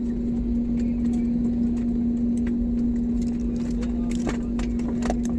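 Airliner cabin noise on the ground after landing: a steady rumble with one constant droning tone. Scattered small clicks and knocks run through it, more of them in the second half.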